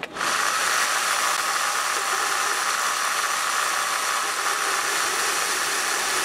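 Vevor 7x14 mini metal lathe switched on: the spindle motor and drive start suddenly and run steadily at about 1200 rpm with an even whirring hiss.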